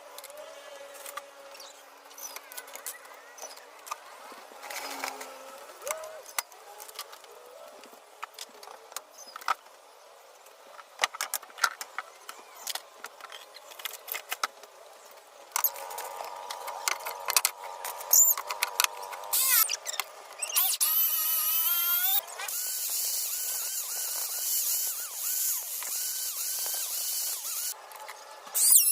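Woodworking sounds: scattered knocks and clicks at first, then from about halfway a power tool running, its whine rising about two-thirds of the way through and settling into a loud steady high hiss near the end.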